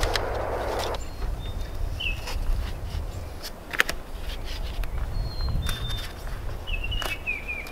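Rustling of a self-adhesive sound-dampening pad and its paper backing being handled, stopping about a second in, then a few sharp handling clicks as the pad is pressed around the line set's brass valves. Small birds chirp briefly several times over a low steady rumble.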